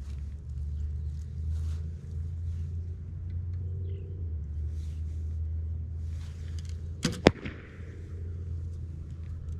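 An arrow shot from a bow about seven seconds in: two sharp cracks a fraction of a second apart, the second louder, then a brief fading whoosh.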